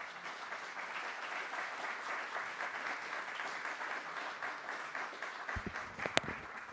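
Audience applauding steadily, with a few low thumps and one sharp knock near the end.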